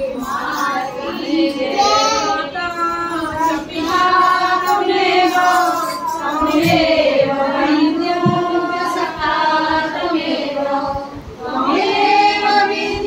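Women's voices singing a Hindu devotional bhajan to the Mother Goddess in long, drawn-out phrases, without drum or clapping. The singing dips briefly about two seconds before the end, then resumes.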